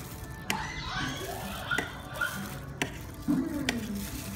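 Knife tapping and scraping against a stainless steel tray while slabs of set jelly are cut, a handful of sharp clicks, with a voice in the background.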